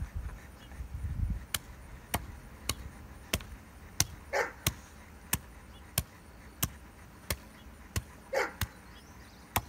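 Heavy meat cleaver chopping raw bone-in chicken on a wooden block, sharp strikes in a steady rhythm about every two-thirds of a second from about a second and a half in. A dog gives two short yips, about halfway through and again near the end.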